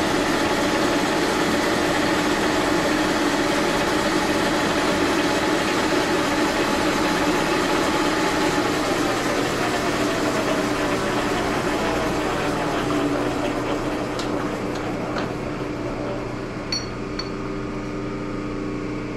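Metalworking machine's motor and gear drive running steadily with a whine, then spinning down with a falling pitch from about nine seconds in. A few light metallic clicks near the end.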